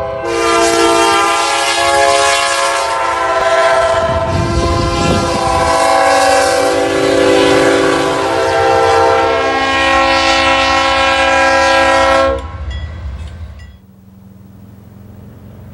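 Diesel freight locomotive's multi-note air horn blowing for a grade crossing: long chords whose notes shift as the blasts change, cutting off about twelve seconds in, over the low rumble of the passing train.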